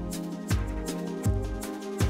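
Background music with a steady slow beat: a deep kick drum about every three-quarters of a second under held notes.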